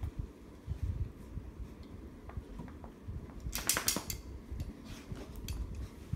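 Two Labradors, a young adult and a puppy, playing with a toy on carpet: low thumps and scuffling, with scattered sharp clicks and a loud cluster of clicks and rattling about three and a half seconds in.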